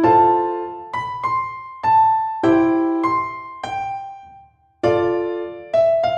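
Background music: a piano-like keyboard playing struck chords and melody notes that fade after each strike, with a short break about two-thirds of the way through.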